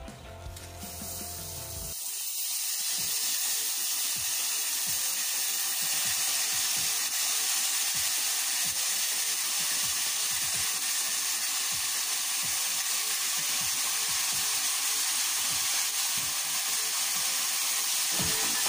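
Rice and browned vermicelli sizzling in hot butter in a pan as the drained, soaked rice goes in and is stirred with a wooden spoon. A loud, steady hiss sets in about two seconds in and holds.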